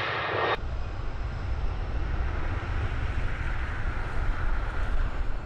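Airliner engines running with a steady deep rumble and a broad rushing noise. About half a second in, it cuts abruptly from a brighter, hissier stretch of the same kind of sound.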